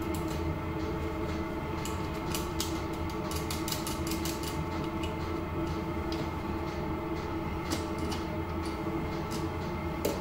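A steady hum of several held tones, with scattered light clicks and taps from wires and terminals being handled on top of a lithium battery.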